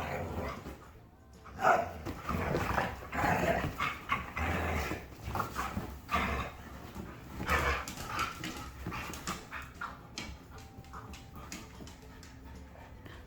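Dogs playing, a puppy among them: short, irregular dog noises come and go throughout, the loudest about two seconds in.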